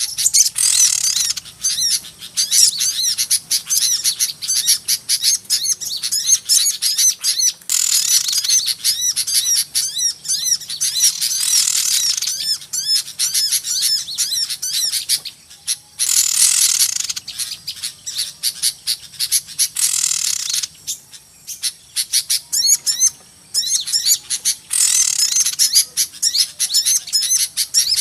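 Noisy chattering of many small birds, used as a lure call for trapping small birds. Rapid high-pitched chirps and twitters run on without a break and swell into denser bursts every four seconds or so.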